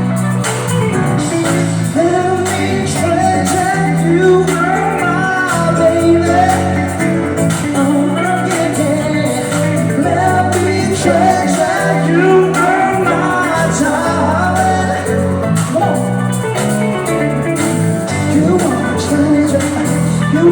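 A live pop band playing, with a wavering melody line over steady bass notes and a loud, even beat throughout.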